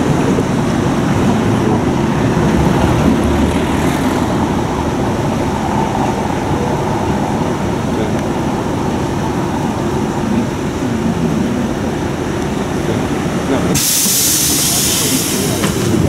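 Classic two-axle tram running on its rails, a steady low rumble and rattle. Near the end there is a loud hiss lasting about two seconds.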